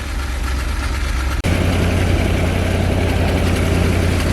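1980 Dodge Ram van engine idling steadily on its own, just cold-started in deep frost after a battery boost. The sound cuts out for an instant about a second and a half in, then returns louder.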